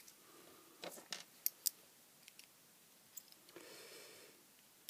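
Faint handling sounds: several sharp clicks and taps as a small knurled metal tool is picked up and set against a silicone-potted LED circuit board. Near the end comes about a second of soft scraping as the tool's tip works at the silicone gunk covering the board's tiny resistors.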